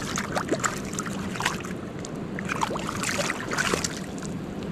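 Water splashing and sloshing in short, irregular splashes over a steady low hum.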